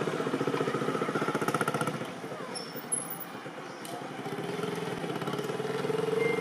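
A small engine running with a fast, even pulse; it fades somewhat about halfway through and grows louder again toward the end.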